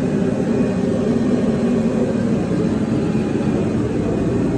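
Garage heater running with a steady, even drone and low hum.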